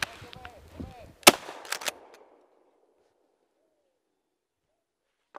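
A shotgun fired once at a flying bird about a second in, a loud sharp report that rings briefly. Two quieter sharp cracks follow within a second, and then the sound cuts out to dead silence.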